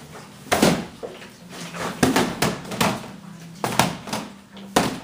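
Hands and forearms striking the hollow plastic arms of a Wing Chun Attachemate training dummy: about seven sharp knocks in quick clusters.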